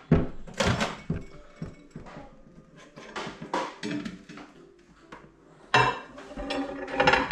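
A microwave door being opened and a plate of nachos set inside and covered: several sharp clinks and knocks of crockery and the door, loudest just after the start and about six seconds in.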